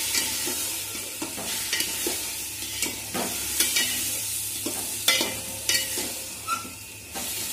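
A spatula stirring and scraping rice and moong dal as they fry in spiced oil in a metal pot, over a steady sizzle. The scrapes come about once a second.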